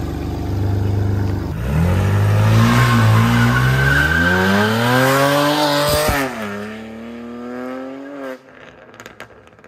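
BMW 335i's N54 twin-turbo straight-six engine idling, then revving as the car pulls away, its pitch climbing for about four seconds. The pitch drops suddenly at a gear change, holds lower, and fades out as the car drives off.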